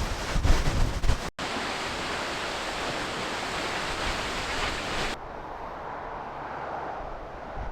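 Wind buffeting the microphone, then the steady rush of a waterfall. About five seconds in the rush cuts to a quieter, duller one.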